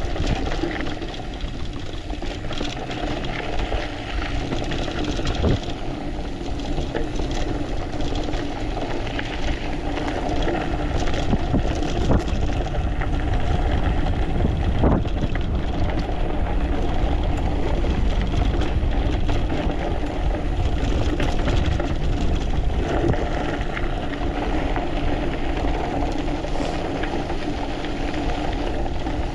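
Mountain bike rolling fast down a dirt and gravel trail: steady wind rumble on the microphone with knobby-tyre noise, and frequent small clicks and rattles from loose stones and the bike's frame and parts.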